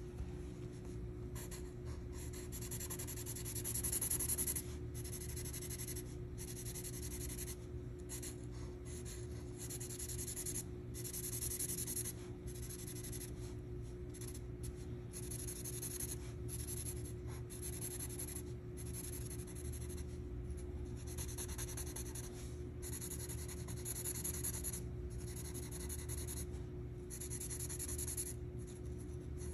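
Yellow Sharpie marker scratching on paper in many short back-and-forth strokes while colouring in letters.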